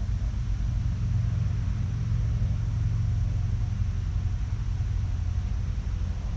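Steady low rumble of wind buffeting the microphone, a little stronger in the middle.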